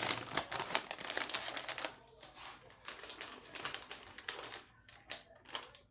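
Plastic bag of shredded cheese crinkling and crackling as the cheese is shaken out of it, dense for about two seconds and then a few scattered clicks.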